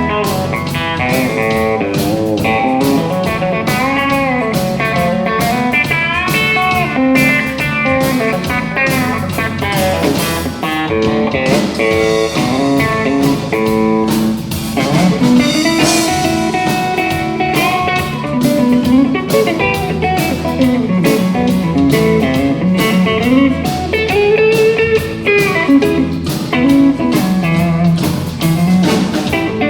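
Scheltema Sherwood Classic pedal steel guitar played in a blues-country style, its notes sliding and bending between pitches, over a backing with a steady drum beat.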